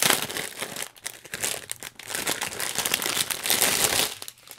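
Clear plastic packaging crinkling as hands handle it, in irregular rustling bursts with a short lull about a second in, dying away shortly before the end.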